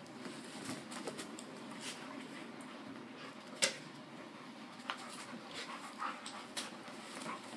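Two dogs play-fighting: scuffling and breathing with short dog vocal noises, and a few sharp clicks, the loudest a little past halfway.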